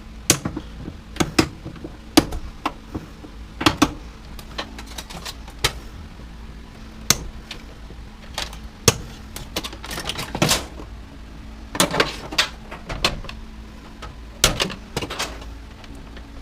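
Irregular clicks, knocks and rattles of metal and plastic parts and hand tools as the wiring harness is worked loose from inside a washer/dryer combo.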